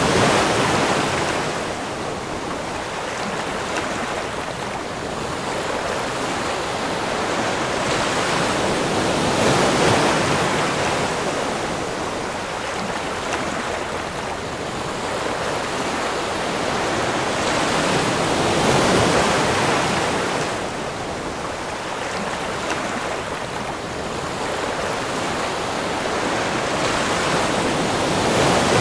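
Ocean surf washing in, a steady rush that swells and eases about every nine or ten seconds as each wave comes in.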